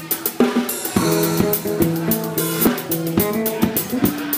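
Live band playing: guitar notes held and changing over a drum kit keeping a steady beat on the cymbals.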